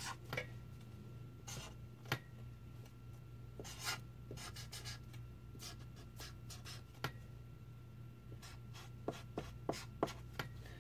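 Sharpie marker writing on paper: short scratchy strokes, with a few sharper ticks near the end, over a steady low hum.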